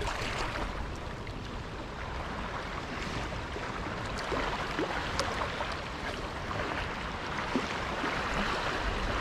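Small harbour waves lapping and washing on a sandy shore: a steady wash of water with faint little splashes.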